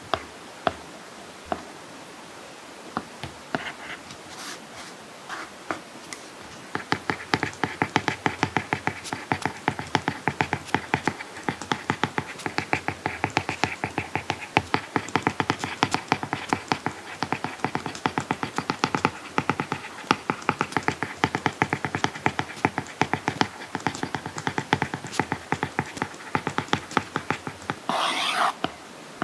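Stylus tip tapping and scratching on an iPad screen fitted with a paper-like matte screen protector as someone handwrites: a few scattered taps at first, then a long run of quick, dense taps and strokes. A brief swish near the end.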